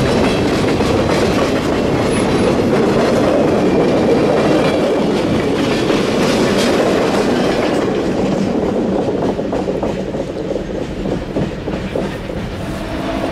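Freight train of open hopper cars and a caboose rolling past close by, steel wheels clacking over the rail joints. The sound thins out and falls away a few seconds after the caboose goes by.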